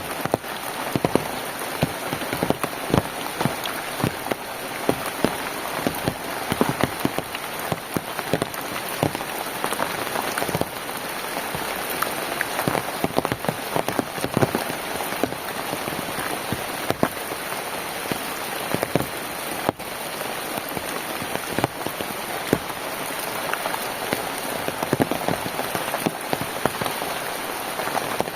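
Steady rain falling, with many individual drops striking close by over a continuous patter.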